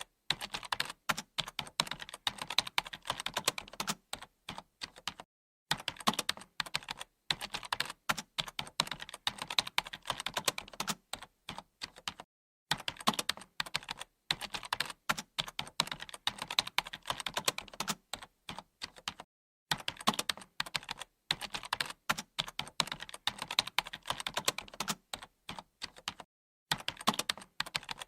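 Fast, continuous typing on a computer keyboard: dense key clicks with a few short pauses of a fraction of a second.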